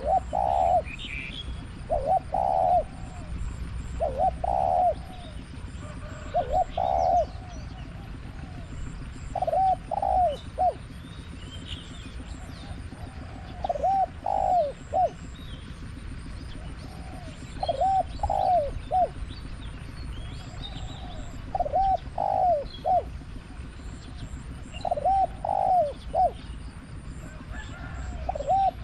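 Spotted dove cooing from a decoy trap cage, repeating a phrase of two or three rolling notes every two to four seconds. Fainter small-bird chirps sound in the background.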